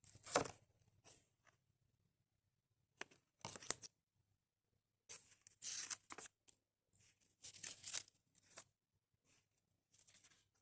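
Paper or card being handled, rustling and crinkling in about five short bursts.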